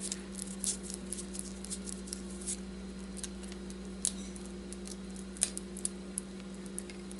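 Faint scattered clicks and light scraping of an alarm system power supply's parts and wires being handled during a teardown, over a steady low hum.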